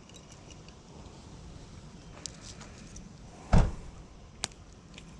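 A dull thump about three and a half seconds in, followed by a short sharp click, over a faint steady background.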